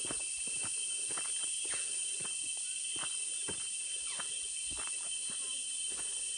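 Footsteps on a dirt trail scattered with dry leaves, a soft crunch about every half second, over a steady high-pitched drone of insects.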